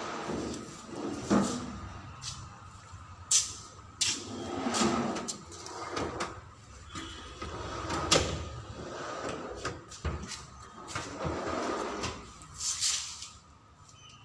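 Modular kitchen base drawers being pulled open and pushed shut several times: the sliding rush of the drawer runners with a sharp knock each time a drawer reaches the end of its travel.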